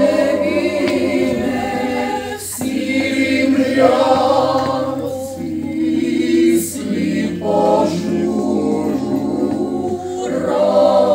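Ukrainian choir of women and men singing unaccompanied in several parts, held chords in phrases of two to three seconds with brief breaks between them.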